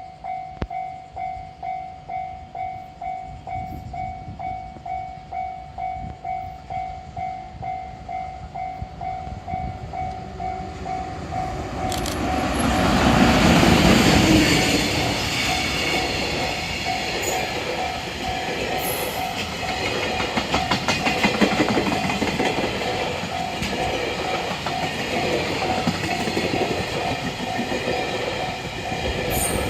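Japanese level-crossing warning bell dinging steadily, about twice a second. About twelve seconds in, a freight train hauled by an EF200 electric locomotive passes loudly, its wagon wheels clattering over the rail joints in a quick rhythm while the bell keeps ringing.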